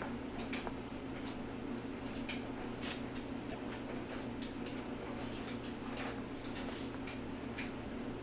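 Steady low machine hum with scattered light clicks and ticks at irregular intervals.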